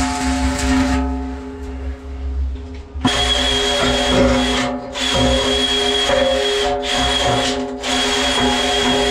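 Electric arc welding crackling on the steel of a concrete mixer for about the first second, then after a short lull an angle grinder starts on the weld about three seconds in, running with a steady high whine that drops out briefly three times as it is lifted or eased off.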